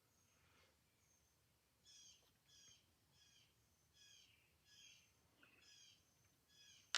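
A bird faintly calling: a run of about seven short, evenly repeated chirps, roughly one and a half a second, starting about two seconds in. A single sharp click right at the end.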